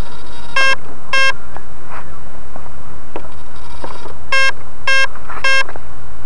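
Electronic beeps from the T-Rex 500 ESP model helicopter's electronics: two short beeps, then after a pause of about three seconds, three more, each about half a second apart, all on the same pitch, over a steady hiss.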